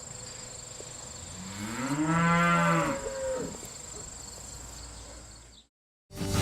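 One long moo from a cow, rising and then falling in pitch, about a second and a half in. A steady high insect drone runs underneath, and everything cuts off near the end.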